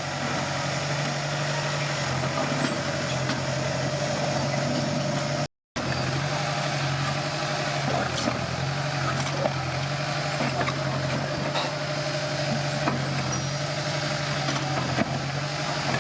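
Komatsu D21P bulldozer's diesel engine running steadily, with faint clicks and clanks over it; the sound drops out completely for a moment about five and a half seconds in.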